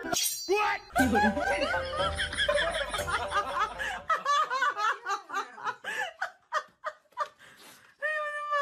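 People laughing and snickering in short bursts, several voices overlapping at first, then quieter separate snickers. A low hum sits under the first few seconds.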